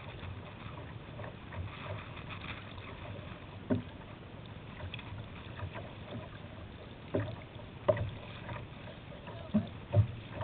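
Kayak moving through choppy river water: a steady wash of water along the hull, broken by a few sharp, irregular slaps and splashes against the boat, the loudest two close together near the end.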